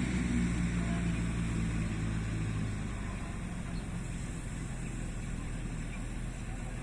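An engine running, its low hum strongest at first and fading after about three seconds, over steady outdoor background noise.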